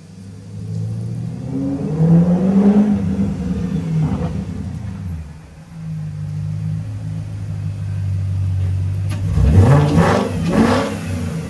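BMW 540i E39's 4.4-litre V8 running and revved twice: the pitch climbs and falls about two seconds in, holds steady, then climbs sharply near the end.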